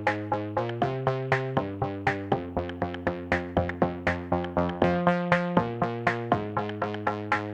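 Background electronic music: synthesizer chords over a steady, quick drum-machine beat.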